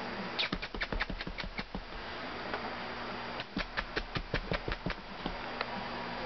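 Olde English Bulldogge puppies' claws clicking and pattering on a hard floor as they scamper, in two quick runs about a second and a half long, over a steady background hum.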